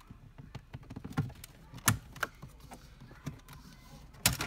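Plastic dashboard trim being pried out with a plastic panel tool: a run of light clicks and knocks, with two sharp snaps about two seconds in and near the end as the side vent's retaining clips let go.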